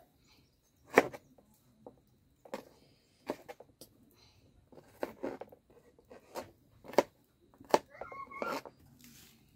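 Large kitchen knife chopping garlic cloves and ginger on a plastic cutting board: single knocks of the blade on the board at an uneven pace, about one a second.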